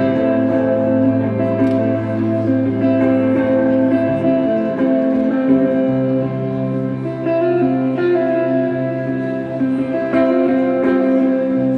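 Live electric guitar and keyboard playing an instrumental passage: held chords over a low note that changes a few times.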